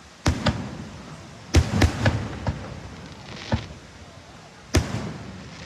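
Fireworks going off: about eight sharp bangs in uneven clusters, some only a fraction of a second apart. There is a crackling haze between the bangs, and the loudest come about a second and a half in and near the end.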